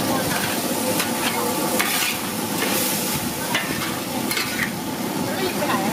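Hot oil sizzling in a large flat iron wok while metal spatulas scrape across its surface, with several sharp clicks of metal on metal.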